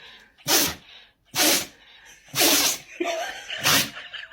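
A dog sneezing four times in a row, about a second apart, each sneeze a short, sharp blast of air through the nose.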